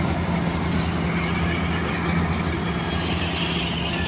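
Kartar 4000 combine harvester's diesel engine running at a steady speed, a loud, even low drone.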